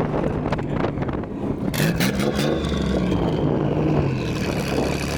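Nissan 300ZX's turbocharged VG30ET V6 engine running, its pitch rising briefly as the revs climb about two seconds in. Two short hisses come through, about half a second and two seconds in.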